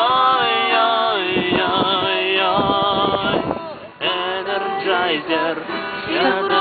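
Voices singing a song together, a man's among them, with long held notes that slide between pitches, to a small acoustic travel guitar. The singing breaks briefly for breath just before the middle and then carries on.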